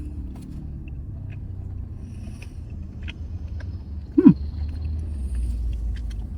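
Low steady rumble inside a parked car, swelling near the end, with light crinkling and clicks of a food wrapper being handled. About four seconds in comes one short, loud, falling hum.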